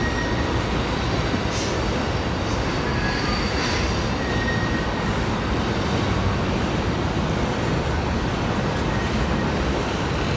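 Loaded tank cars of a freight train rolling over a steel girder trestle: a steady rumble of wheels on rail, with a faint high wheel squeal now and then.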